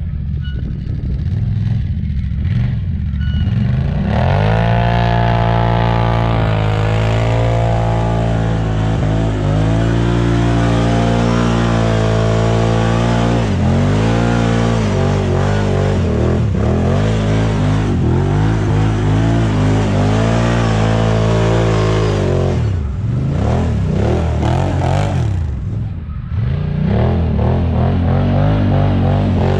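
ATV engine running under throttle, its revs rising and falling as it is ridden. The revs climb sharply about four seconds in, ease off for a few seconds near the end, then pick up again.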